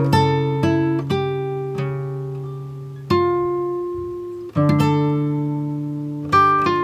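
Background music: a slow instrumental of chords that ring out and fade, with a new chord struck every one to two seconds.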